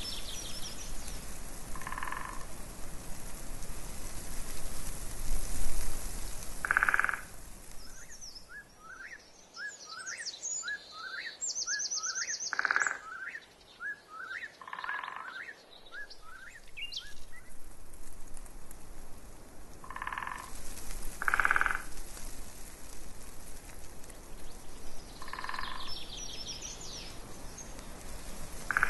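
Frogs croaking in short calls every few seconds, with a songbird singing a run of quick rising chirps and high trills in the middle. Gusts of wind rumble on the microphone, dropping away while the bird sings.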